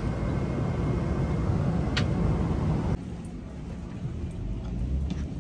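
Steady drone of an airliner cabin in flight, with one sharp click about two seconds in. About three seconds in it cuts to quieter jet-bridge ambience with a few faint light ticks.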